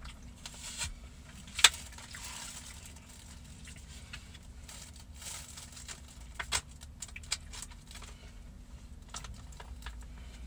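Plastic takeout containers and a bag being handled, with scattered clicks and rustles and one sharp click about one and a half seconds in, over a low steady hum.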